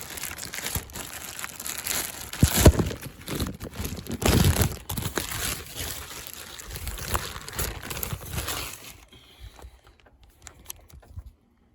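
Close crinkling and rustling handling noise with scattered clicks and knocks, louder around two and a half and four and a half seconds in, dying away about nine seconds in.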